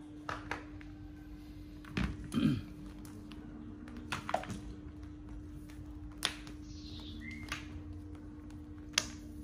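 Scattered light clicks and taps from handling a Bosch PBH rotary hammer drill that is switched off, with a louder thunk about two and a half seconds in, over a steady low hum.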